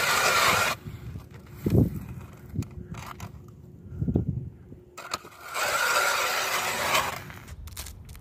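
Power ice auger boring into lake ice, with a harsh grinding hiss as the bit cuts. The grinding stops after under a second, two low thuds follow, and it grinds again for about a second and a half near the end.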